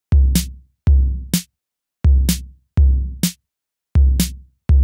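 Sparse hip-hop drum-machine beat. Deep bass kicks alternate with short, sharp snare-like hits about a third of a second after each, in an uneven, syncopated rhythm with silent gaps between.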